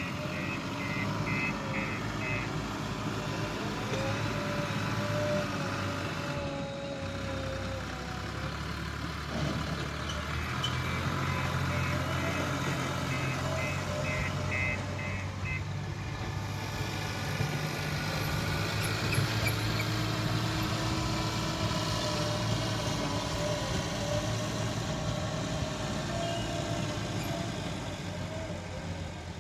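Diesel engine of a JCB 3DX backhoe loader running while it works, with a wavering whine that rises and falls. Its reversing alarm beeps about twice a second at the start and again for several seconds midway.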